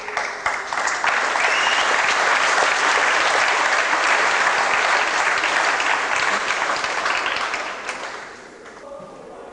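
Audience applauding: dense clapping that starts suddenly, holds steady for about eight seconds, then dies away.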